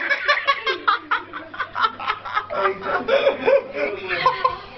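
Several people laughing hard in quick repeated pulses, with some voices mixed in.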